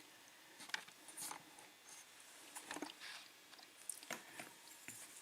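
Faint, scattered light clicks and ticks of small lock pins being picked up and handled on a work surface.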